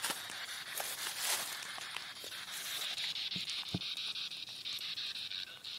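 Spirit box sweeping through radio stations: hissing static chopped into rapid, even ticks, with a steadier high hiss settling in about halfway through.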